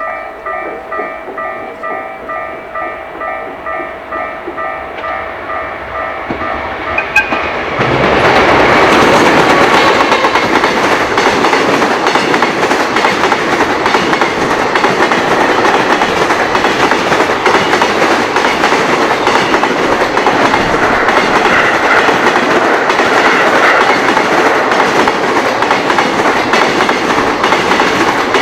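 Japanese level-crossing warning bell ringing in a steady repeating clang, then a train arrives about eight seconds in and passes close by, loud and steady, its wheels clacking over the rail joints.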